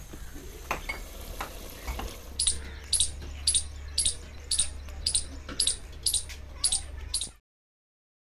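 Rhythmic scraping strokes, about two a second, at an aluminium cooking pot on a gas-cylinder burner, over a low steady hum. The sound cuts off suddenly near the end.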